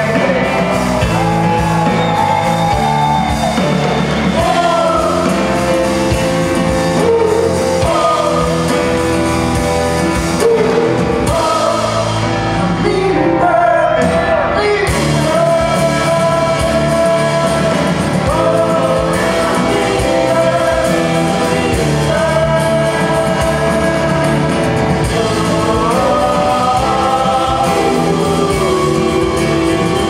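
Live rock band playing a song: a man sings over acoustic and electric guitars, a drum kit and a keyboard.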